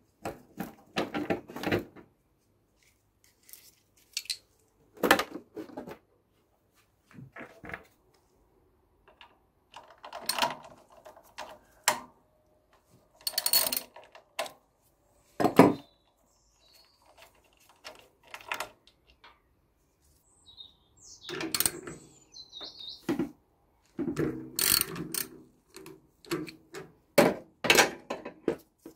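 Screwdriver clicking and scraping on the screws of a Yamaha TDM 850's plastic fairing panels as they are undone, with knocks and rattles as the panels are handled. Scattered sharp clicks and short runs of rapid clicking, with quiet gaps between.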